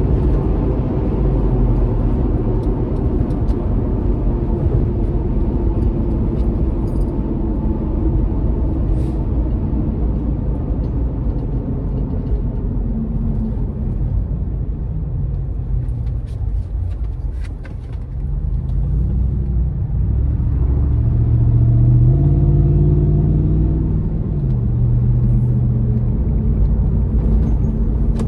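Inside the cabin: a Toyota 4.7 L V8 running through a stainless Magnaflow Overland cat-back exhaust, over tyre and wind noise. The engine note falls steadily as the vehicle slows over the first half, then rises twice as it accelerates again toward the end.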